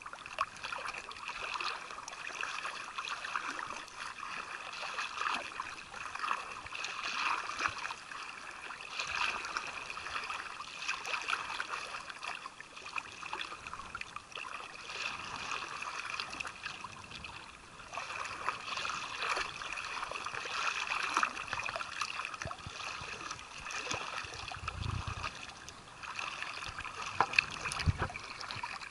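Shallow seawater lapping and sloshing right against the microphone, a fluctuating crackly fizz of small wavelets, with two low bumps near the end.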